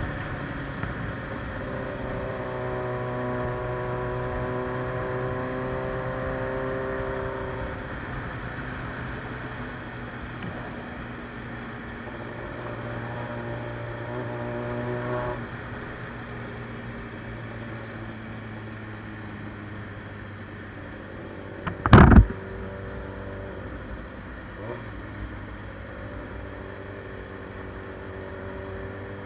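Suzuki Bandit 600 inline-four engine with a straight-through exhaust running while riding, holding steady revs and easing off. One loud sharp bang about two-thirds of the way through.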